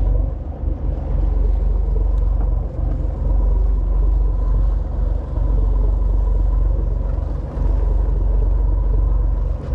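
Steady low rumble on a fishing boat at sea: wind buffeting the microphone over the boat's running engine, with a faint steady hum.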